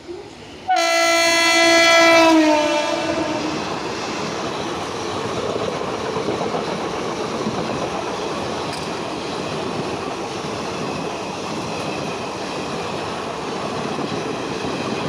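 Indian Railways WAP-7 electric locomotive sounding its air horn as it passes at about 100 km/h. The horn comes in sharply less than a second in, and its pitch drops as the locomotive goes by. The horn gives way to the steady rush and wheel clatter of the coaches going past.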